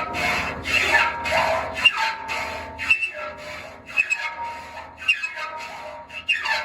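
A hand file rasping across the teeth of an inserted-tooth circular sawmill blade in repeated strokes, each stroke setting the steel plate ringing with a high squeal. The teeth are dull and short and are being sharpened with a little lead filed into their faces.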